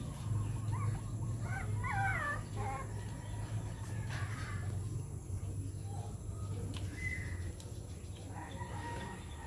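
Chickens calling in the background, a few short wavering calls about two seconds in and fainter ones later, over a steady low hum.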